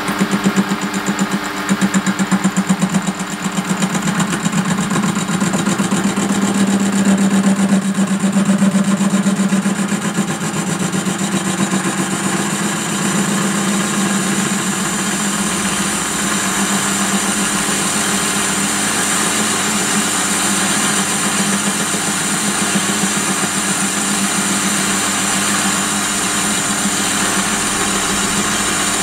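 Small lathe running at about 400 RPM while its tool takes a slow facing cut across a 3.5-inch home-cast aluminium block, cut dry without lubricant. A steady machine hum, a little louder and rougher for the first ten seconds or so, then even.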